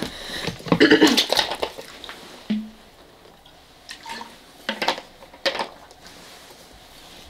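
A few separate sharp clicks and clinks of small hard objects being handled and set down, after a short burst of voice about a second in.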